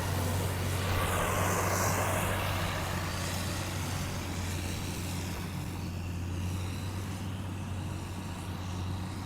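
Steady motor-vehicle engine hum with road noise, fading slowly, and a brief swell of hiss about a second in.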